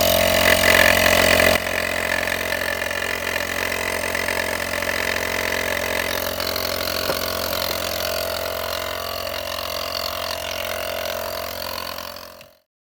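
Small air compressor running steadily with a hum and hiss, blowing air into the washer system's hoses to clear a blockage; its level drops a step about a second and a half in, and it stops abruptly near the end.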